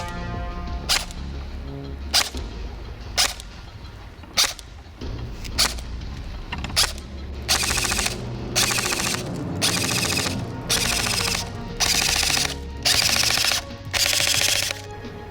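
WE SCAR-H SSR airsoft rifle being test-fired: single shots about a second apart at first, then from about seven seconds in a run of short full-auto bursts, each under a second long.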